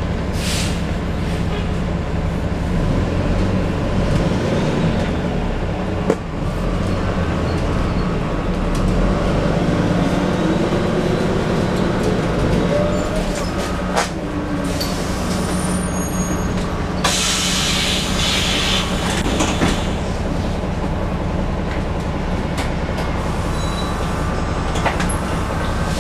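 Cummins ISM inline-six diesel of a Neoplan AN440 transit bus, heard from inside the cabin: a steady, bassy drone while the bus drives. The engine pitch rises for a few seconds partway through as the bus accelerates. There are a couple of sharp clicks and a brief hiss about two-thirds of the way in.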